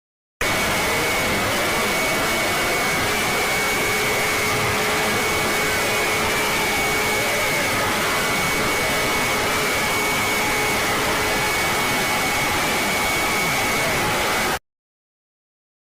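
Loud static hiss from an Emergency Alert System alarm clip, with faint steady tones beneath it; it starts abruptly just after the start and cuts off abruptly near the end.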